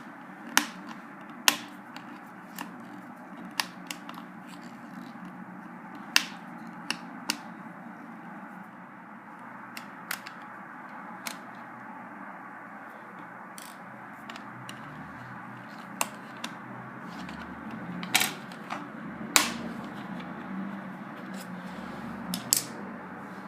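Scattered sharp clicks and taps as a fingernail file is used as a screwdriver on the small screws and plastic bottom cover of a netbook, roughly fifteen irregular ticks over a steady hiss.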